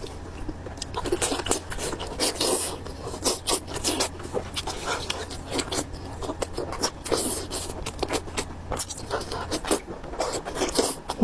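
Close-miked eating sounds: chewing and mouth smacking, a dense run of short, irregular wet clicks, as the lamb intestine and pig brain are eaten. A faint low hum stops near the end.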